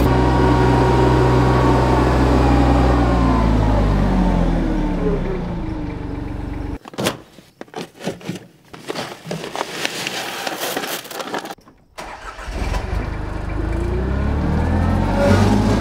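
Summit TX25 compact tractor engine running, its pitch falling over the first few seconds. About seven seconds in it gives way to a quieter stretch of rustling and scattered clicks as seed is poured from a plastic bag into a plastic spreader hopper. From about twelve seconds the engine runs again, rising in pitch.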